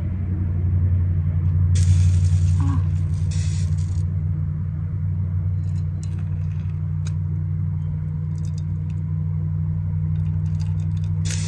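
A steady low machine hum, with a burst of rustling or hissing noise about two seconds in and again near the end, and a few light clicks.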